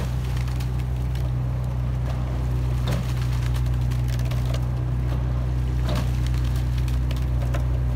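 A motorboat's engine running at a steady low hum, with the oars of a sweep-rowing four splashing at the catch about every three seconds.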